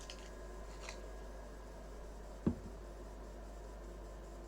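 Quiet workbench background with a faint steady hum, a couple of faint ticks, and one sharp knock about two and a half seconds in, like a tool or part being set down on the bench.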